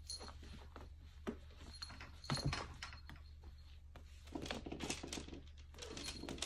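A cat excited by catnip spray rolling and thrashing on a plush cat-tree perch: irregular scuffing, rustling and scratching, with a thump about a second in and a louder knock a little after two seconds.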